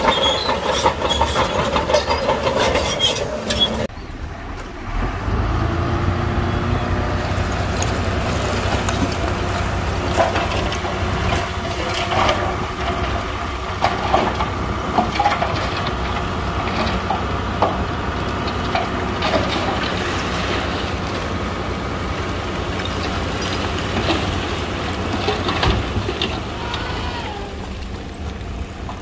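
Shantui crawler dozer running under load with its tracks clanking, changing about four seconds in to a dump truck's diesel engine running steadily as its bed tips and a load of stone slides out, rocks knocking and clattering onto the pile.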